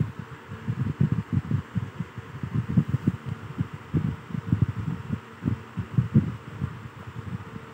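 Irregular low thumping and rumble, several thumps a second, over a steady hiss, picked up by the phone's microphone while the screen is recorded.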